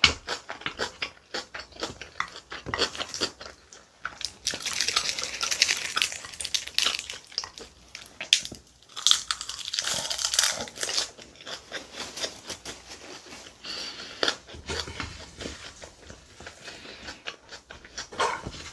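Close-miked eating sounds: a wooden spoon clicking and scraping against a large bowl of kimchi bibimbap, and open-mouthed chewing of a mouthful wrapped in roasted seaweed, with crisp crackly stretches about five and ten seconds in.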